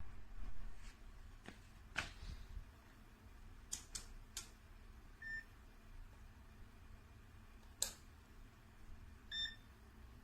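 Two short electronic beeps from a digital clamp meter, about five seconds and nine and a half seconds in, among scattered faint clicks of handling.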